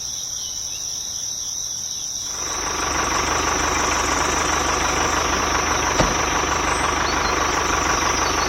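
The small motor of a DIY mini tractor starts up about two seconds in and runs steadily, with one sharp click a few seconds later. Crickets chirp as a steady high trill throughout.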